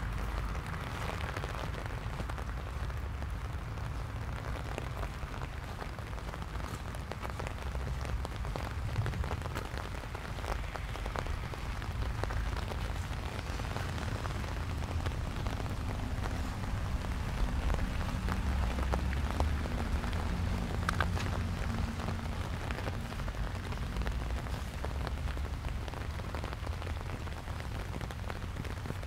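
Steady light rain falling, with scattered small drop ticks, over a low wind rumble on the microphone.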